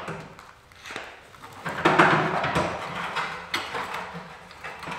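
Spanner working on rusty steel bolts: a run of metal knocks and clinks, with a louder scrape and rattle about two seconds in.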